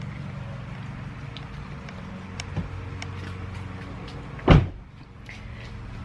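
A steady low mechanical hum, with one loud thump about four and a half seconds in.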